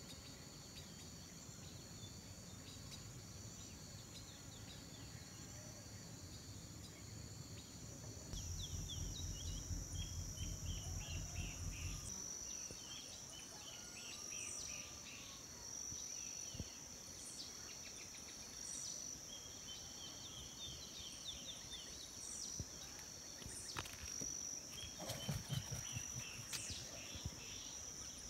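Insects shrilling steadily with short bird chirps scattered through. A low throbbing rumble runs under them for the first twelve seconds, loudest from about eight seconds until it stops.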